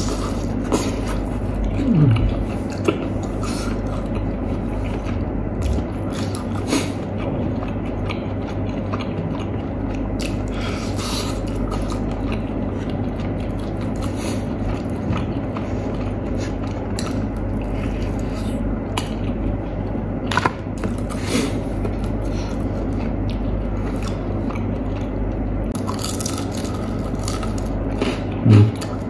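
Close-up chewing and biting of crispy fried chicken, with small crackles and clicks as skin and meat are torn off the bone by hand, over a steady low hum. A short low thump near the end.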